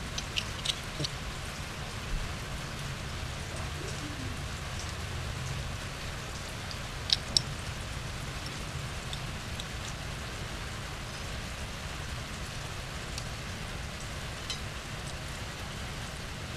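Small metallic clicks from a motorcycle drum brake shoe pair and its return springs being handled, with two sharper clicks close together about seven seconds in. A steady hiss runs underneath.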